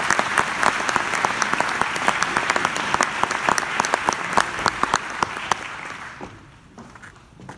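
Audience applauding, with some sharp claps close by over a dense spread of clapping. It dies away about six seconds in.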